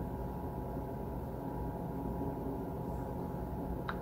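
Room tone: a steady low hum carrying faint steady tones, with one short click near the end.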